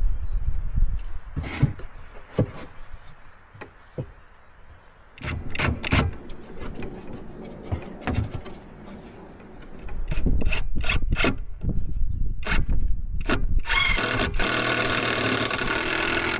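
Work with wood and hand tools: scattered knocks, scrapes and rubbing. About two and a half seconds before the end, a motorised tool starts running steadily and becomes the loudest sound.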